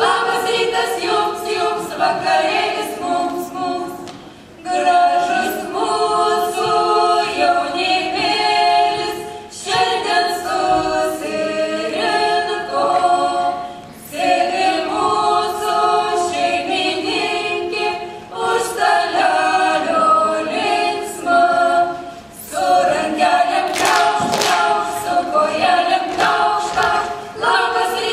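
Children's voices singing a Lithuanian folk song together, unaccompanied, in phrases with short breaks between them, for a sung circle dance.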